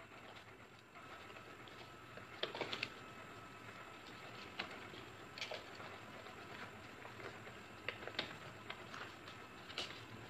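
Sheet of origami paper rustling and crackling as it is folded and creased by hand, with a handful of sharper crinkles spread through, the loudest cluster about two and a half seconds in.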